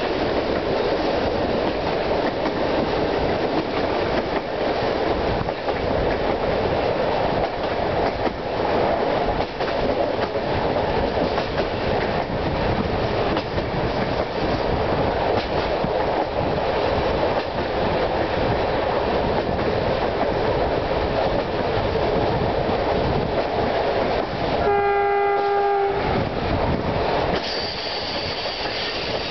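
Steady rushing rumble of a train running fast on its rails, heard from on board. About 25 seconds in a train horn sounds once for about a second, and a thin high tone comes in near the end.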